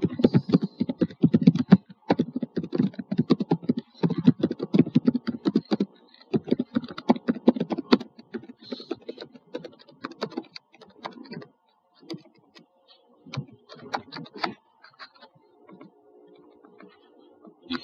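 Typing on a computer keyboard: quick runs of keystrokes broken by short pauses, then slower, scattered keystrokes that stop about fifteen seconds in.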